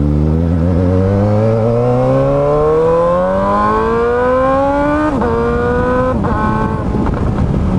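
Motorcycle on an Akrapovič exhaust with its end tip removed, accelerating hard: the engine note climbs steadily through one gear for about five seconds, then drops sharply at two quick upshifts about a second apart, and settles into a lower, rougher note.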